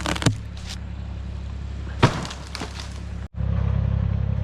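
Chainsaw idling with a steady low hum, with a knock right at the start and another sharp knock about two seconds in, after a "Headache!" warning for falling wood. The sound cuts out sharply near the end and comes back louder.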